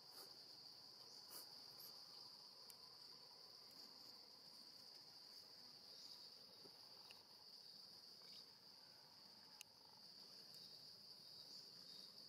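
Faint, steady high-pitched insect chorus droning without a break, with a few faint ticks.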